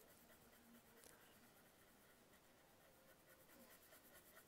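Faint scratching of a watercolour pencil colouring on watercolour paper, close to near silence.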